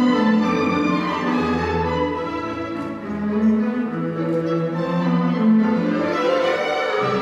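Classical orchestral music, with bowed strings carrying a flowing melody.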